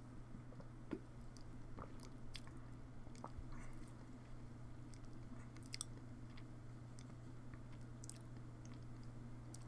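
Faint mouth sounds of swallowing a swig of soda and tasting it: small wet clicks and lip smacks scattered throughout, over a steady low hum.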